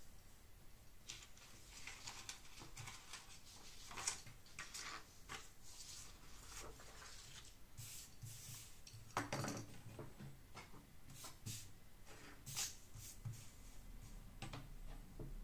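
Utility knife blade scoring and cutting through printer paper on a cutting mat, with paper sheets rustling and being handled in short scratchy strokes. A dull knock about nine seconds in is the loudest sound.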